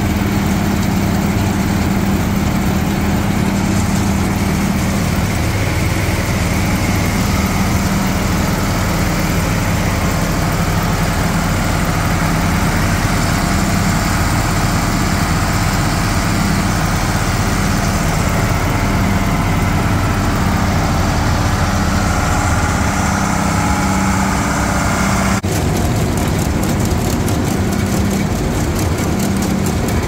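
Tractor diesel engine running steadily at working speed, driving a silage bagger, mixed with the clatter of the bagger's machinery as chopped corn silage is fed into it from a forage wagon.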